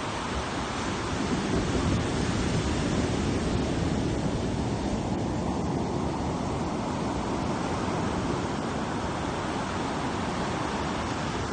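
Ocean surf breaking and washing up the beach: a steady rushing wash that swells about two seconds in, then eases.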